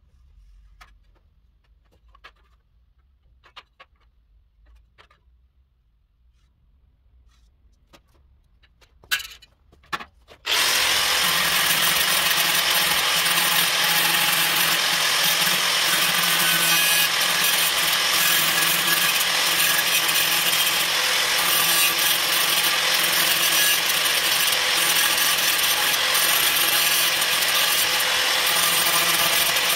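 Faint taps and scratches, two sharp knocks about nine and ten seconds in, then an angle grinder starts and runs steadily for the rest, cutting into the steel blade of a notched trowel.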